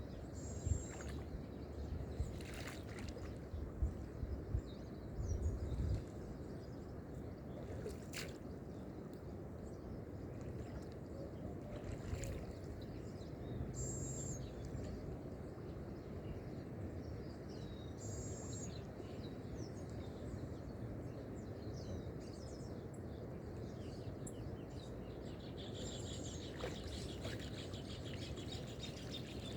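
Lakeside nature ambience: a steady low rush of water lapping, with a few short, high bird chirps every few seconds. There are several low thuds in the first few seconds.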